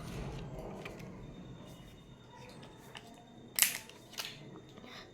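Quiet handling noises of paper stickers being picked off a sheet and placed: a faint click about a second in, then a sharp short rustle about three and a half seconds in and a smaller one half a second later.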